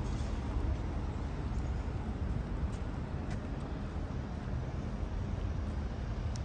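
City street ambience: a steady low rumble of traffic, with a few faint high ticks.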